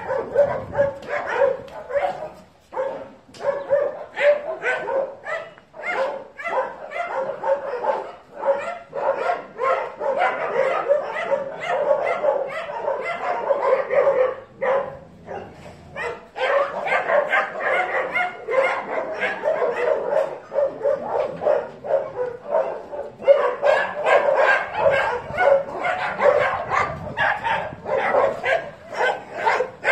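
A pack of dogs barking and yipping, many barks overlapping in a near-continuous din with only brief lulls.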